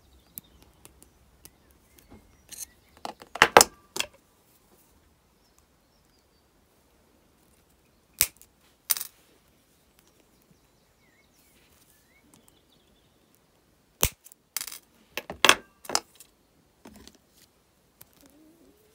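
Sharp metallic clicks and ticks of copper wire and steel pliers handled while wire is bent around a pendant frame. The clicks come in a cluster a few seconds in, twice on their own around the middle, and in another cluster a little past two-thirds of the way through, with quiet between.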